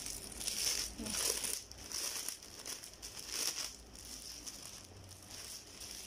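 Thin clear plastic packaging bag crinkling in irregular bursts as it is handled and opened and an item is pulled out of it, loudest in the first two seconds.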